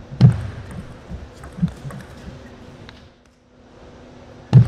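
Table tennis rally: the celluloid ball clicking off the rackets and table several times over about three seconds, with two heavy low thumps, one just after the start and one near the end, over a steady low hum.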